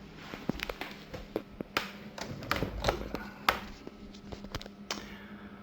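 Irregular light clicks and taps, a dozen or so, over a steady low electrical hum.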